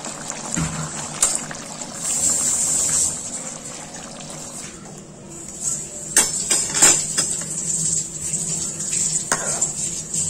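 Fish curry simmering in a pan with a bubbling hiss, then a few sharp clinks of steel dishes and a spoon in the second half.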